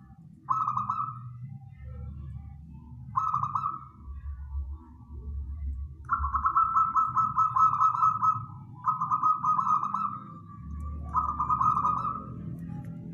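Zebra dove (perkutut) cooing its rapid, rolling trill. Two short phrases come first, then longer trills run almost unbroken through the second half.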